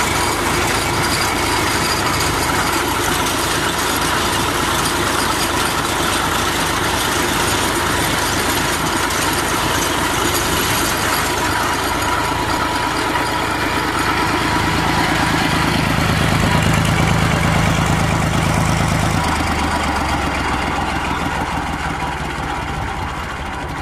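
Piling machine's stationary engine running steadily. Past the middle its note grows louder and deeper for a few seconds, then drops back abruptly about four-fifths of the way through.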